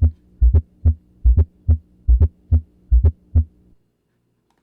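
Recorded heart sounds in a triple gallop rhythm at about 70 beats a minute. Each beat is a quick pair of low thumps and a single thump: the extra third or fourth heart sound beside S1 and S2. A faint steady hum runs under it, and the beats stop a little before the end.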